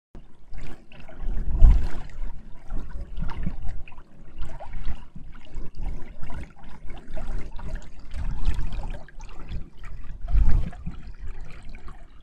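Water running along an open levada irrigation channel, with an irregular low rumble that swells strongly twice, about a second and a half in and again near the end.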